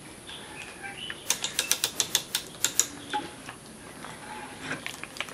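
Ratchet of a hand brace clicking: a quick run of sharp clicks, about six a second for roughly two seconds, then a few fainter scattered clicks near the end.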